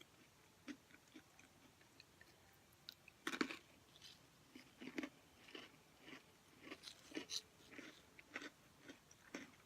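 Thin, crispy pretzel-cracker crisps crunched between the teeth: a sharp bite about three seconds in, another about five seconds in, then a quicker run of small crisp crunches as they are chewed.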